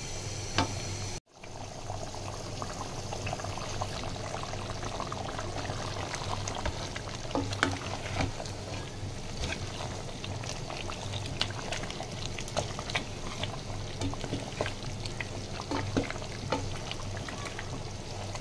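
Beef curry simmering in a pot in the juices released by the meat, a steady bubbling sizzle dotted with many small pops. The sound breaks off briefly about a second in.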